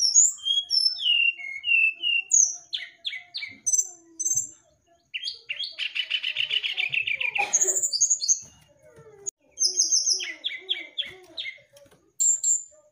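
Brown-chested jungle flycatcher (sikatan rimba dada coklat) singing a varied song of quick whistled slurs. About five seconds in, a fast buzzy trill lasts a couple of seconds, and a burst of rapid repeated notes follows near the end.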